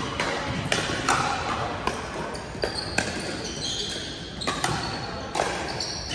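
Pickleball rally: paddles striking the hard plastic ball in a series of sharp pops, about one a second, echoing in a gym hall, with short high squeaks of sneakers on the hardwood floor between shots.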